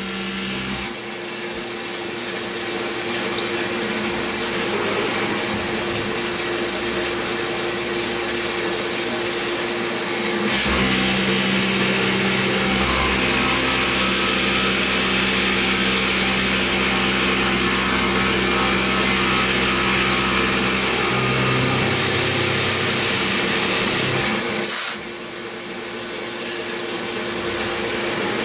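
CNC milling machine side-cutting a metal block with a long end mill under flood coolant: a steady cutting noise with a constant whine from the spindle and cutter. The cut gets louder and deeper-toned about ten seconds in, then drops away sharply for a moment near the end and builds back up.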